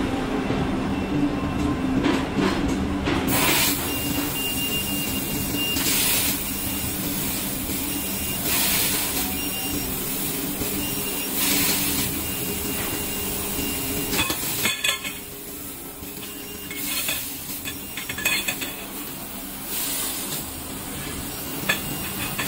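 CNC laser tube-cutting machine at work: a steady machine drone with repeated short bursts of hissing from the cutting head as it cuts a steel tube. The drone drops away about two-thirds of the way through, leaving the hiss bursts and lighter clatter.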